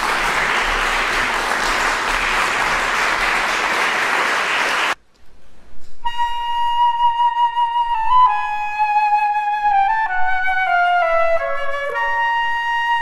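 Audience applause that cuts off abruptly about five seconds in; after a brief pause, a solo metal concert flute plays long held high notes, with one phrase stepping downward and then returning to the high note.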